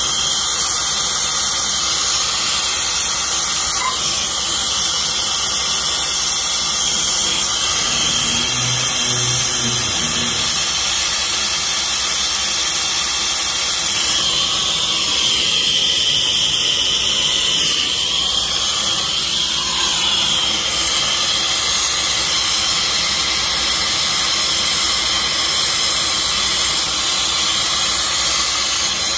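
Brazing torch flame hissing steadily as it heats a copper refrigerant line joint, its tone shifting about halfway through.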